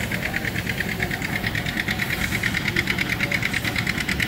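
Small walking beam steam engine running, with a fast, even beat over a low rumble.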